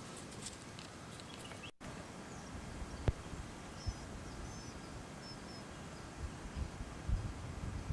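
Rural outdoor ambience: a steady hiss with a few faint, high bird chirps a few seconds in, one sharp click, and low thumps on the microphone that grow near the end.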